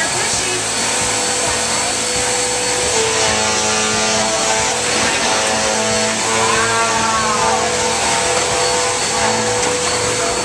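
Upright vacuum cleaner running steadily: a continuous rushing air noise with a constant motor tone, as it is pushed back and forth over the floor.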